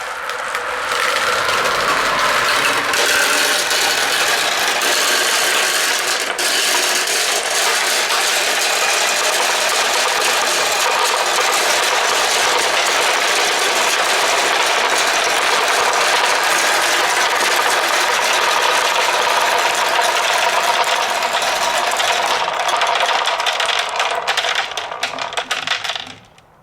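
Marbles rolling down a marble run of wooden slopes and plastic hose, a continuous dense rattling clatter that dies away near the end.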